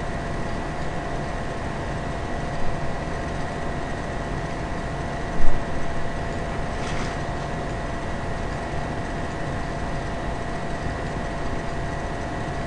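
Steady machine hum with two constant whining tones, and one short knock about five and a half seconds in.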